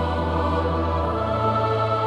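Slow background music of sustained chords, with choir-like voices holding long notes over a deep bass note that shifts pitch about halfway through.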